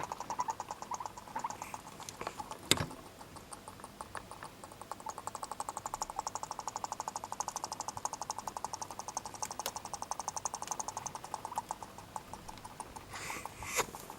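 Guinea pig chattering its teeth, a rapid run of fine clicks several per second that goes on in long stretches: the guinea pig's sign of anger or irritation. A single sharp knock about three seconds in.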